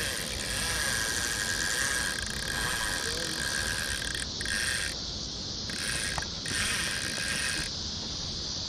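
Fishing reel's clicker buzzing as line peels off an open spool while an alligator gar runs with the bait. It is steady for the first few seconds, then stops and starts in short spurts.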